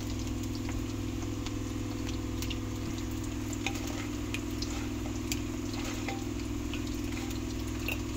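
Hot frying oil sizzling, with short scattered pops and crackles over a steady low hum.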